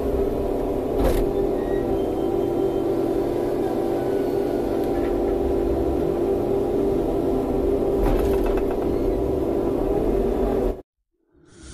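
Kobelco hydraulic excavator's diesel engine and hydraulic pumps running steadily under load as the machine digs and swings, heard from inside the cab, a steady hum with a droning tone. Two short knocks come about a second in and about eight seconds in, and the sound cuts off abruptly near the end, where a whoosh begins.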